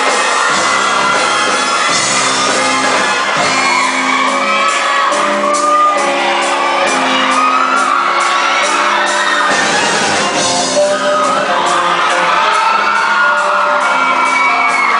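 Show choir singing with band accompaniment: sustained chords, a beat and bending vocal lines, with shouts and whoops over the music.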